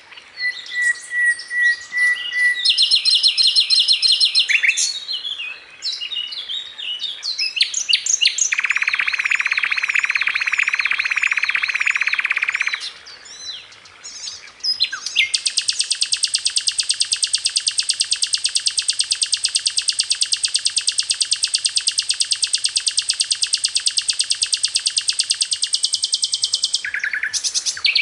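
Songbird singing: varied chirps and quick trills, then one long, fast, even trill lasting about twelve seconds from around the middle.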